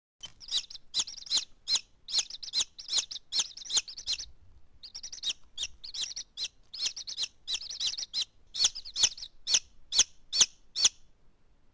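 Chicks peeping: rapid high cheeps in quick runs, with a short break about four seconds in.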